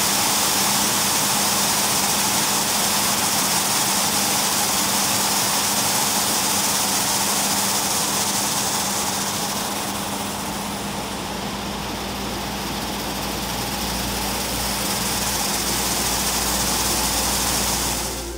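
Flip-dot display's many small magnetic discs flipping over together: a dense, steady clatter of tiny clicks that merges into a hiss, thinning somewhat about halfway through, over a low steady hum.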